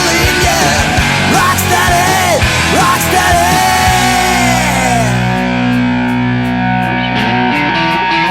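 Rock music with electric guitar: a bending lead line gives way, about four seconds in, to long held chords.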